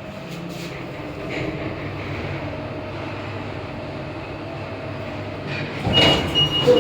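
Passenger lift car travelling, its drive giving a steady low hum and rumble inside the car. Near the end it grows louder and a high beep sounds in short repeats.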